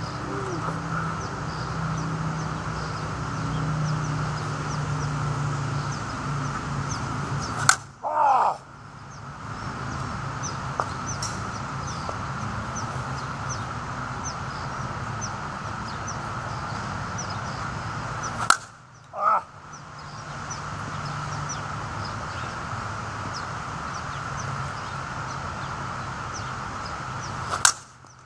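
Composite slowpitch softball bat striking a softball three times, about ten seconds apart, each hit a single sharp crack.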